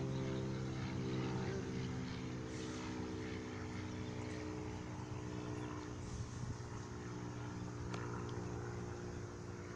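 An engine running steadily with an even hum, easing off slightly toward the end.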